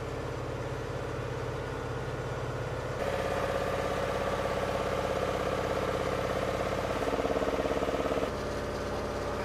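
An engine running steadily with a pitched, many-toned hum. Its pitch and loudness shift abruptly about three seconds in, rise again about seven seconds in, then drop back just after eight seconds.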